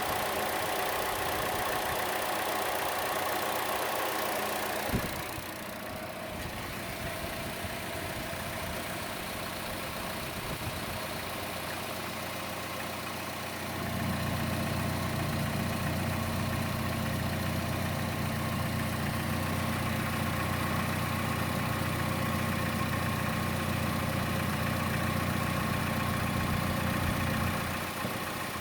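Chevrolet Cruze engine idling with a ticking louder than the normal engine tick, most noticeable on the belt side of the engine; its cause is unknown. A deeper hum comes in about halfway through and drops out near the end.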